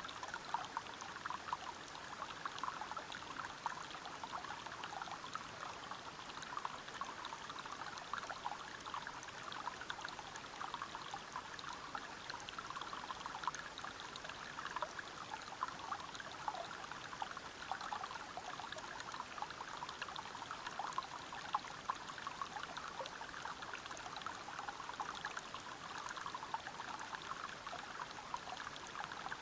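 Water flowing and splashing steadily over rocks in a stream or small waterfall, with a constant rush and many small bubbling splashes.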